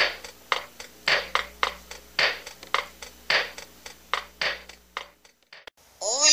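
Intro music of a strummed acoustic string instrument, guitar or ukulele, with evenly spaced strums about twice a second, stopping about five seconds in. A voice starts near the end.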